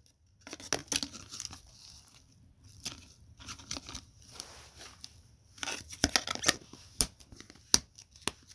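Plastic fidget toys and a clear plastic mochi tub being handled: irregular clicks, taps and rustles, with the sharpest clicks in the second half.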